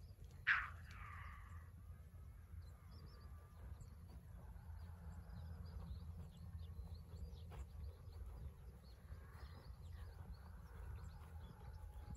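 A Japanese raccoon dog (tanuki) calling from long grass: one sharp, loud cry about half a second in, then fainter drawn-out growling cries a few seconds later and again near the end.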